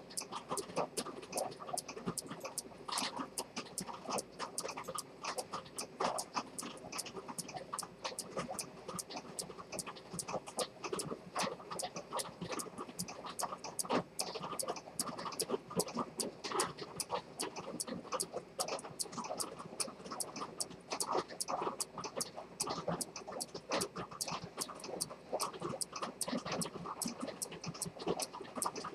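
Dent detent-escapement pocket watch movement ticking, a rapid, even run of sharp ticks picked up close over a rough background hiss.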